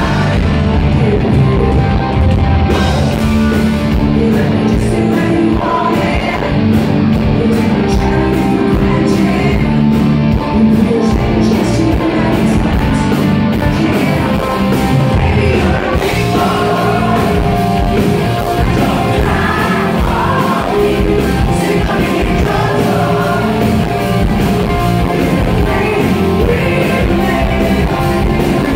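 Live rock band playing loud and steady: a female lead singer over electric guitar and drums.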